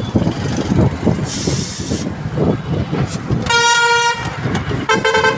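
Busy street traffic with a vehicle horn honking twice: a held toot about three and a half seconds in and a shorter one near the end. There is a brief hiss about a second and a half in.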